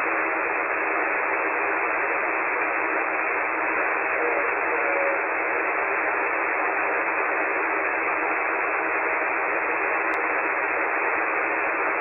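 Steady hiss of HF band noise from a KiwiSDR web receiver tuned to lower sideband on the 40-metre amateur band, with no station heard, cut off sharply above the narrow voice passband.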